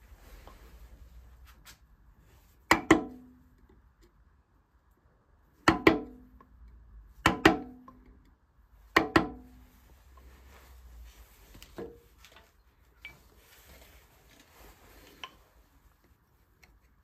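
Mallet strikes on a carving chisel cutting into wood: four sharp knocks, each a quick double tap, about a second and a half apart. After them come quieter scraping and light ticks as the tool pares the wood.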